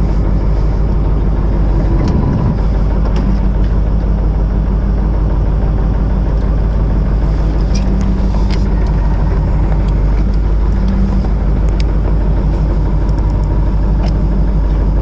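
Fishing boat's engine running with a steady low drone, and a few light clicks over it.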